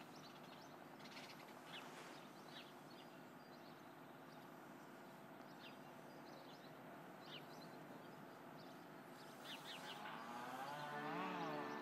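Quiet outdoor ambience during a minute of silence: a faint low hum with scattered short bird chirps. About ten seconds in, the orchestra begins playing, with sustained notes and a wavering melody line.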